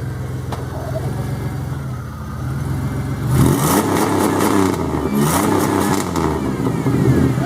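Buick car engine idling, then revved repeatedly from about three seconds in, its pitch rising and falling, with a raspy, aggressive exhaust note.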